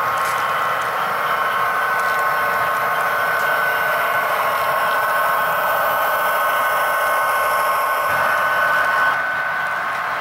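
HO-scale model diesel locomotives and coal train running on the layout track: a steady mechanical whirring with a steady two-tone whine. The sound eases a little about nine seconds in.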